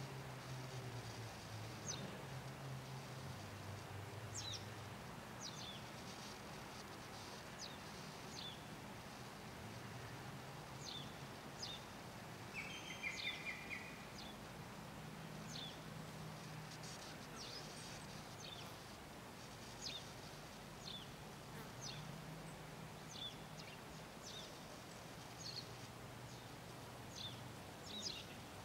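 Small birds chirping outdoors: short, high, quick calls about once a second or so, with a brief buzzy call about halfway through, over a faint low hum.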